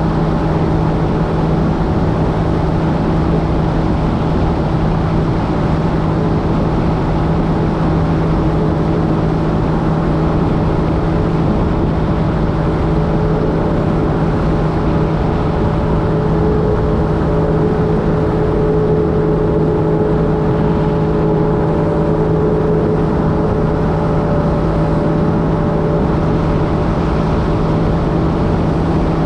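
Jet ski engine running at a steady speed, a constant hum that holds the same pitch throughout, over a steady rush of wind and water noise.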